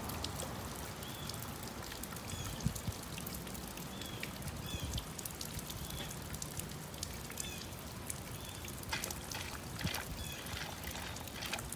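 Steady summer rain falling, with close drips and spatters that get denser and louder near the end. Short high chirps repeat every second or so over the rain.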